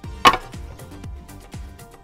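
Background music with a steady beat, and one short, sharp knock about a quarter of a second in.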